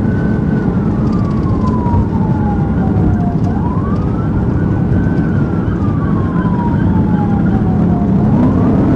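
Police car siren on a slow wail: each cycle climbs quickly and then falls slowly, repeating about every five seconds, with a new rise near the end. Under it runs steady road and engine noise from a car at highway speed.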